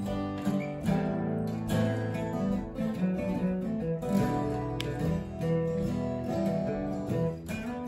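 Three acoustic guitars played together, strumming chords in an instrumental passage.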